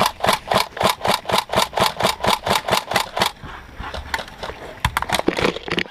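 Airsoft gun firing a steady burst of about seven shots a second for roughly three seconds, then a few scattered shots near the end.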